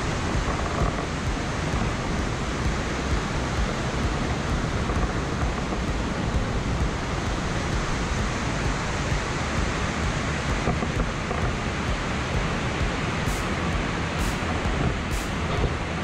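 Steady rushing roar of a two-tier waterfall pouring into its plunge pool.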